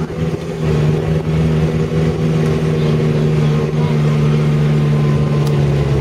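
Engine of a motor vehicle driving along a dirt vineyard track at a steady pace, with an even drone that holds one pitch, over tyre and road noise.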